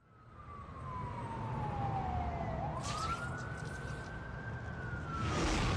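A single siren-like tone that slides slowly down, swoops back up and holds, then falls again, over a swelling wash of noise, with two whooshes about three and five and a half seconds in: an electronic intro effect leading into the soundtrack's music.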